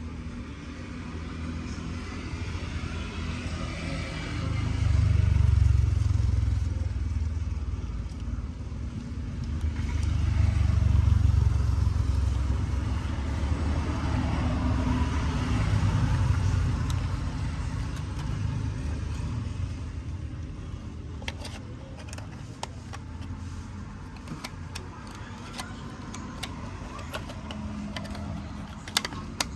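A vehicle engine running with a low rumble that swells louder twice before settling back, followed by scattered light clicks and taps near the end.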